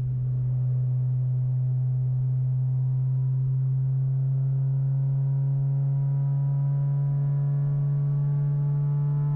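Acura RSX Type-S's K20 four-cylinder and its loud aftermarket exhaust droning steadily at cruise, heard from inside the cabin, a deep, even hum whose pitch creeps up slightly as the revs rise.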